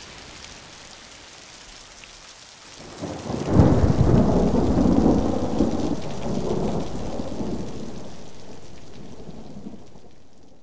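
Steady rain, then a clap of thunder about three seconds in that rumbles on and slowly fades away.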